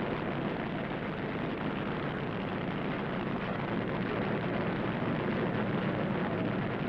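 Drag-racing funny car engines running steadily at the starting line as the cars stage, a loud, continuous engine noise with no sharp revs or launch.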